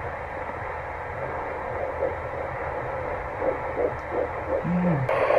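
Handheld fetal Doppler's speaker playing an early fetal heartbeat: a fast, rhythmic whooshing pulse read at 173 beats per minute, a normal fast rate for early pregnancy.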